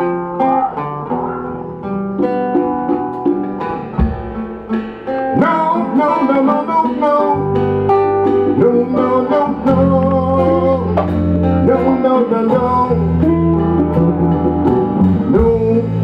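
Live band music led by a picked acoustic guitar. About five seconds in it swells fuller and louder, and sustained low bass notes come in underneath a couple of seconds later.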